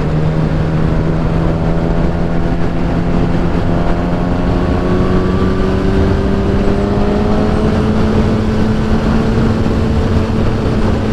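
2015 Kawasaki Ninja ZX-10R's inline-four engine pulling steadily in one gear, its note rising slowly as the bike gathers speed, under a steady rush of wind on the helmet microphone.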